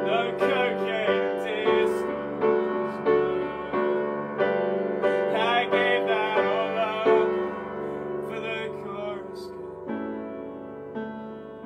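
Upright piano played live, chords struck at an even steady pace, growing softer and changing chord about ten seconds in.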